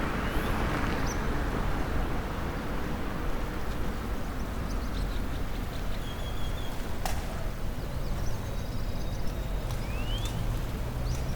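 Steady wash of Pacific surf with wind rumble on the microphone, and a few short rising chirps near the start and near the end.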